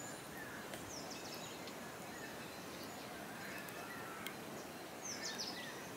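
Faint open-air ambience with a few small, distant bird chirps, some about a second in and more about five seconds in.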